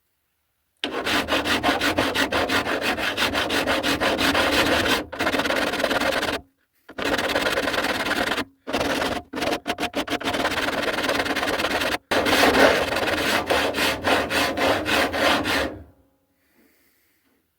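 Hand file rasping back and forth across the welded steel edge of a car body panel, in quick, even strokes with a few short pauses. It is shaping the edge to close up the door gap.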